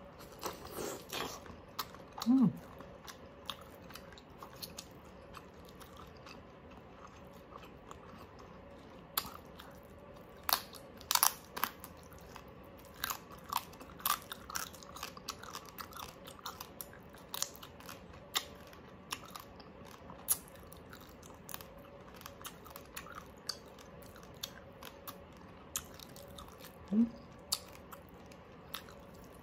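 Close-up chewing and biting of oven-roasted crispy pork, with irregular crunches from the crackling skin and wet chewing between them. A brief murmur from the eater comes twice, once near the start and once near the end.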